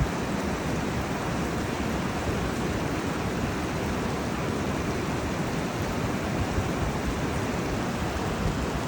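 The Kunhar River, a fast mountain river, rushing: a steady, unbroken noise of running water, heaviest in the low end.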